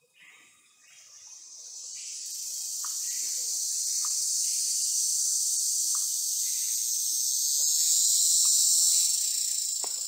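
A high, hissing insect drone that builds up over the first few seconds, holds steady and eases off near the end, with a few faint short chirps over it.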